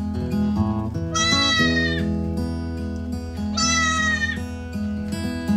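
Pygmy goat bleating twice, each call under a second and falling slightly at the end, over background music.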